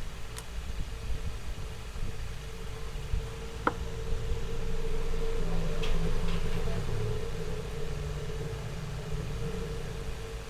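Steady background of road-traffic rumble and the constant hum of a running ceiling fan, with a couple of small sharp clicks from bench work.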